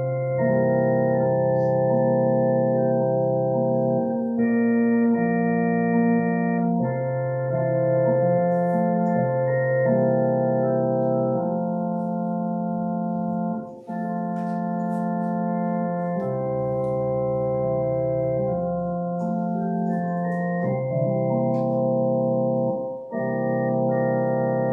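Electronic organ playing slow, held chords that change every second or two, with short breaks between phrases about 14 and 23 seconds in.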